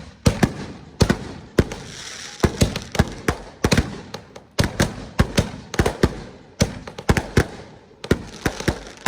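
Consumer fireworks finale: a rapid, irregular barrage of loud bangs, two to four a second, with crackling hiss between them about two seconds in and again near the end.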